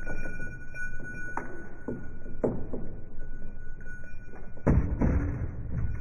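Pistol shots in an indoor range: sharp reports about a second and a half, two and a half and nearly five seconds in, the last one loudest and ringing on in the hall.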